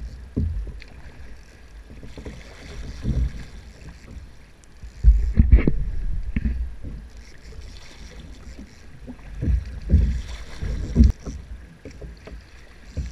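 Choppy sea water slapping against a kayak hull in irregular low splashes, with wind buffeting the microphone. The loudest slaps come about five seconds in and again around ten to eleven seconds in.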